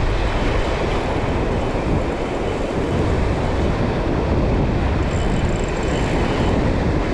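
Steady rush of wind buffeting the microphone over breaking ocean surf, a low, even roar.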